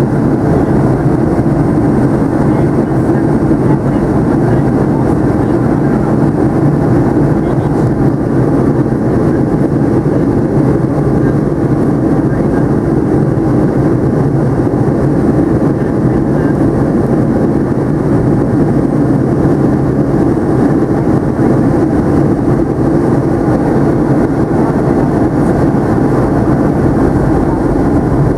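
Steady cabin noise inside a Boeing 757-200 in flight, heard from a window seat over the wing during descent: an even, unbroken rumble of engine and airflow noise with no changes.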